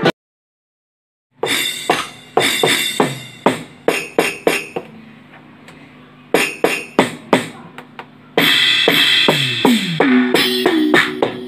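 Electronic drum sounds from a Roland SPD-20 percussion pad as its pads are struck by hand: after a second or so of silence, a run of single drum hits, some of them tom-like with a falling pitch, and a busier stretch of hits with a held tone near the end.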